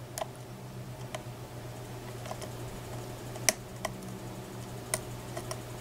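Irregular small metallic clicks of a lock pick working the pin stacks of a Mako M2 SFIC core while tension is held on it, about seven in all, the loudest about three and a half seconds in. A steady low hum runs underneath.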